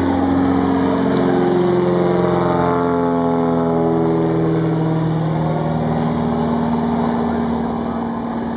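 Fieseler Storch light aircraft's piston engine droning as it flies low overhead; its pitch drops between about two and five seconds in as it passes, then holds steady and fades a little as it moves away.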